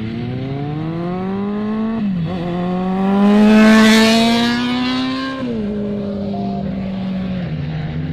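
Motorcycle engine accelerating past close by, its pitch climbing and dropping sharply about two seconds in at a gear change, then climbing again. It is loudest about four seconds in as it passes, and the pitch drops again about five and a half seconds in.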